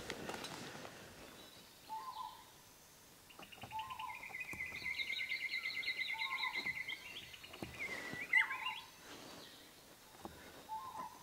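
Birds singing: a long, fast trilling song lasting about five seconds from a few seconds in, over a short lower call repeated every two seconds or so.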